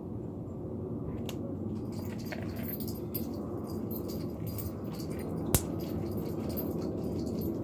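Slime being mixed in a bowl: scattered small clicks and taps, one sharper click about five and a half seconds in, over a steady low background rumble.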